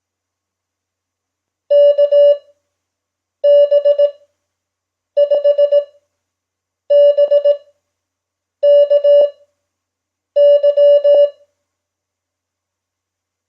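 Morse code (CW) practice tone sending six characters at 5 words per minute with Farnsworth spacing. Each character is a quick run of dits and dahs on one steady mid-pitched beep, with long silent gaps between characters. The sending stops a couple of seconds before the end.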